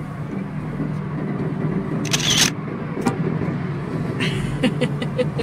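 Steady engine and road noise inside a moving car, heard from the cabin. A brief hissing rustle comes about two seconds in, and a sharp click a second later.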